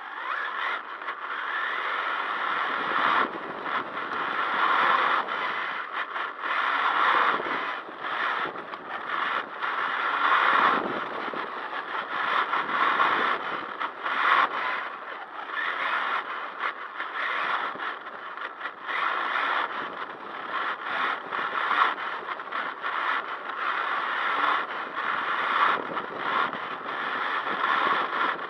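Onboard sound of an HPI WR8 Flux, a 1/8-scale brushless electric RC rally car, being driven: a rough scraping noise of tyres and chassis over the ground, with rattles, rising and falling as it speeds up and slows.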